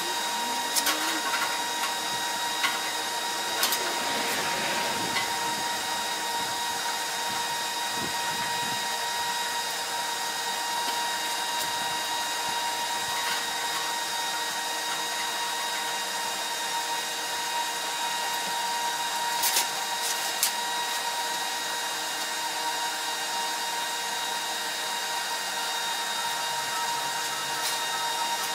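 Steady electrical machine hum and whine, with a few light clicks and taps.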